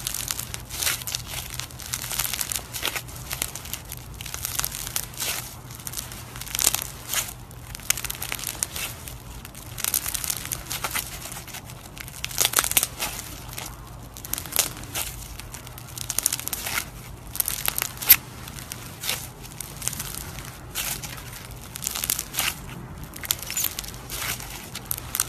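Foam-bead slime (floam) squeezed and kneaded in the hand, giving a dense, irregular run of crackling and crunching as the beads are pressed and the slime pulls apart.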